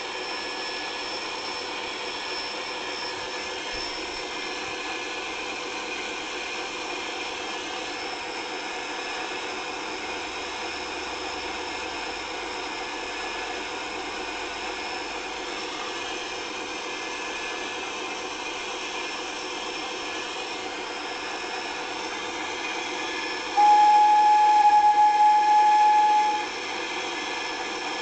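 A standing locomotive giving a steady mechanical running hum and hiss, then a loud whistle blast of about three seconds on one steady tone, near the end.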